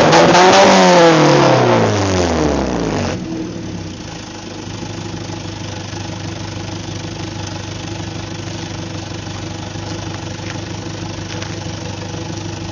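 Citroën Xsara VTS engine with its catalytic converter removed, revved once more and then dropping back about three seconds in to a steady idle through the decatted exhaust.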